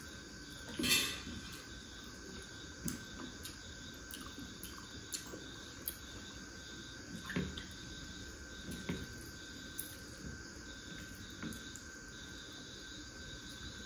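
Crickets chirping steadily in the background, with scattered soft clicks and smacks of people eating rice and chicken with their hands, and a brief louder noisy sound about a second in.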